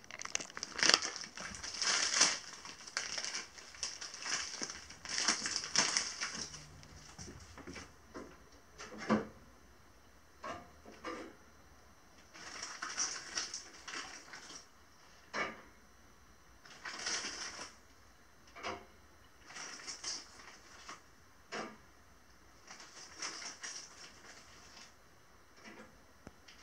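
Plastic bag of frozen gyoza crinkling in irregular bursts as it is handled, with a few light knocks in between.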